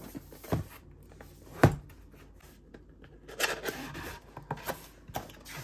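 Cardboard product box handled and opened by hand: a few sharp taps and knocks, the loudest a little over a second and a half in, then about a second of cardboard scraping and sliding as a flap is pulled open, followed by a couple of light clicks.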